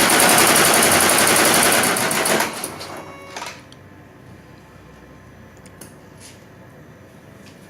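Computerized embroidery machine stitching at speed with a rapid, even clatter, then slowing and stopping about two and a half to three and a half seconds in. A few faint clicks follow.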